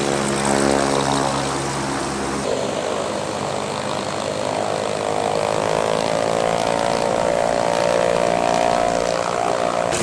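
Propeller biplanes' piston engines running on the ground, edited together: one steady engine note for the first couple of seconds, then a different engine whose pitch climbs gradually over several seconds.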